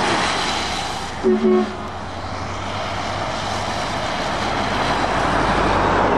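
A Volvo FH truck's diesel engine and tyres on a wet road as it passes, with two short horn toots about a second in.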